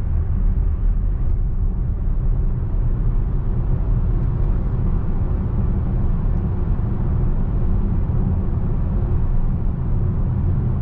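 Volkswagen ID.7 electric car driving at a steady speed: a steady low rumble of tyre and road noise, with no engine sound.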